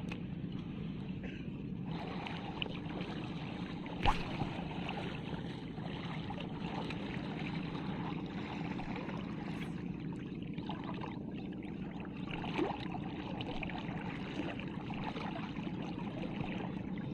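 Steady water noise, with water moving and lapping, and a single sharp click about four seconds in.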